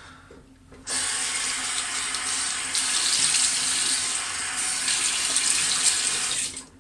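Sink tap running as shaving lather is rinsed off. The water comes on about a second in and is turned off just before the end.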